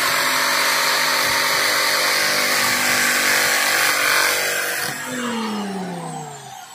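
Angle grinder fitted with a glue-stiffened cloth disc running at full speed and cutting through a bottle gourd. About five seconds in it is switched off, and its whine falls in pitch as the disc spins down.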